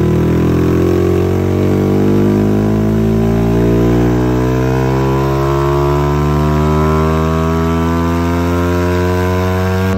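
Yamaha Y15ZR's single-cylinder engine, rebuilt to Spec 62, pulling under load on a chassis dynamometer. Its pitch rises slowly and steadily as the revs climb through a dyno run.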